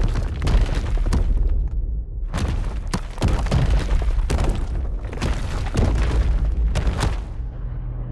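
Layered sound-effects explosion of a café blowing apart: a rapid series of sharp crashes and debris impacts over a continuous deep rumble. The impacts stop about seven seconds in, leaving the rumble.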